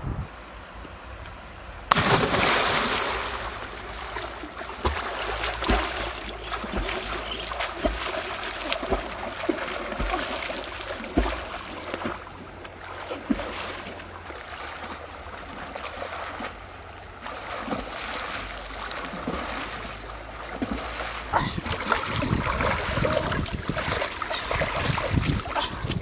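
Water splashing and sloshing as a person wades into and swims through a river, starting suddenly about two seconds in and going on as an irregular run of splashes, with wind on the microphone.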